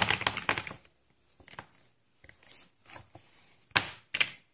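Plastic felt-tip sketch pens clattering and rustling against each other and the paper as hands spread them out. The clatter fades within the first second, then come a few light taps and two sharp clicks near the end.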